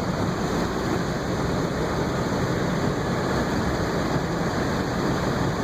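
Floodwater rushing steadily over and along a road, a constant full roar with a low rumble underneath.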